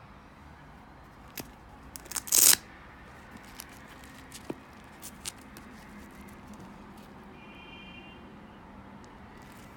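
Handling noise from a suede high-top sneaker being turned in the hands: a short loud rasp about two seconds in, then a few light clicks and rustles.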